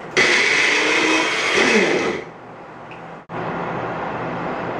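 Small personal blender running for about two seconds, its chopping blade cutting greens, then switched off.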